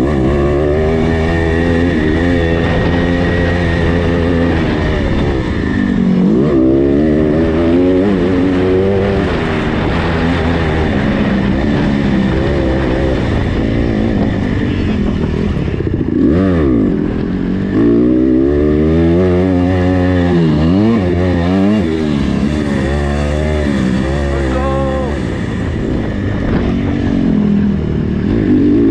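Motocross bike engine heard close from the bike itself, revving up and dropping back over and over as the rider opens and closes the throttle and shifts around the track.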